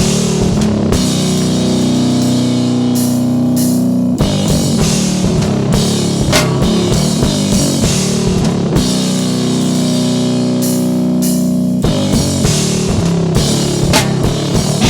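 Rock music with a drum kit and guitars, loud and steady.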